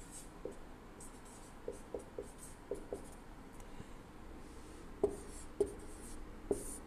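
Marker pen writing on a whiteboard: short squeaks and taps of the pen strokes, with a few sharper ones about five seconds in.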